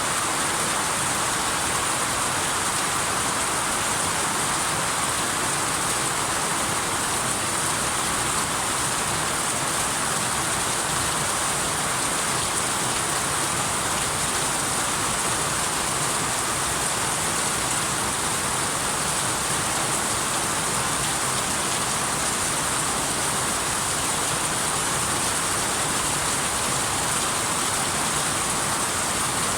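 Steady rain falling: an even, unbroken hiss with no thunderclaps or single drops standing out.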